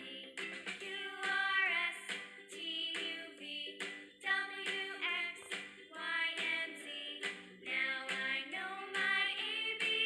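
Background music: a song sung in a high voice over a steady instrumental backing.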